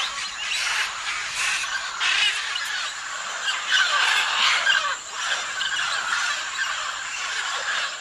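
A mixed flock of macaws and smaller parrots calling all at once: many overlapping squawking calls in a dense, unbroken chorus.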